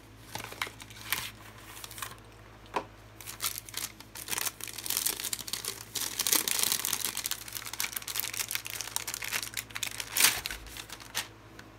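Phone-case packaging being handled: light taps and clicks from the cardboard box, then the thin plastic bag holding the case crinkling densely for several seconds, with a sharper snap near the end.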